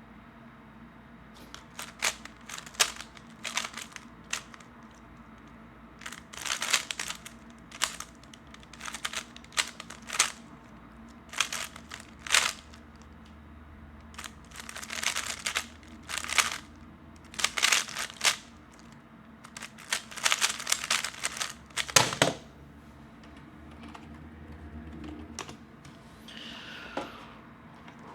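3x3 plastic speedcube being turned fast: quick bursts of clacking, scraping layer turns, with one sharp knock about three quarters of the way through, after which the turning stops.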